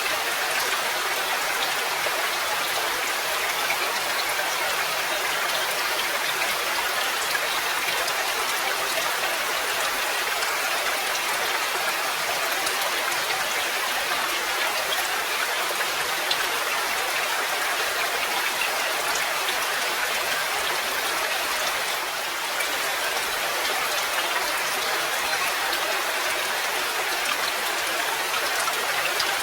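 Steady, dense rainfall: an even patter of countless raindrops that doesn't let up.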